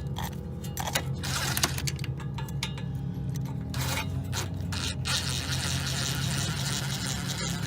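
A steady low motor hum with scattered metallic clicks and taps from hand tools working on the quad's small oil filter cover bolts. A louder rushing hiss joins past the middle.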